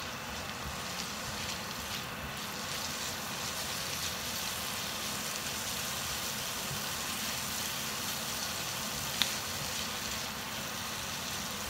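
Rawon spice paste with lemongrass and galangal sizzling steadily as it is sautéed over a turned-up flame in a non-stick wok, stirred with a silicone spatula; a single sharp tap about nine seconds in.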